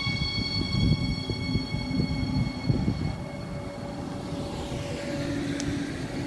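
Siemens Desiro HC electric multiple unit pulling out of the station, its wheels rumbling over the track with a few louder knocks as the cars roll past.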